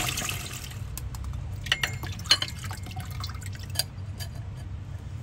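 Kitchen tap water running onto raw shucked oysters as they are rinsed in a bowl and a stainless mesh strainer in the sink, with scattered sharp drips and light taps. The stream hisses louder at the start and eases within the first half-second.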